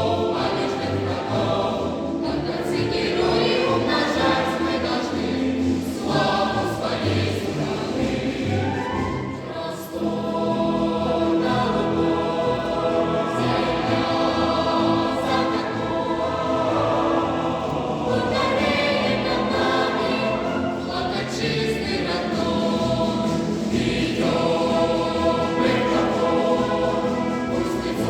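Children's choir singing a march with military brass band accompaniment, with a brief break between phrases about ten seconds in.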